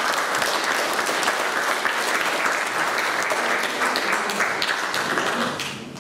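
Audience applauding steadily after a talk, the clapping dying away near the end.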